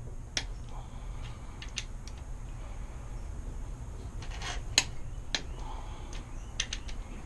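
Click-type torque wrench tightening a connecting-rod cap bolt to 46 foot-pounds: a few scattered sharp metallic clicks, the loudest about five seconds in, over a low steady hum.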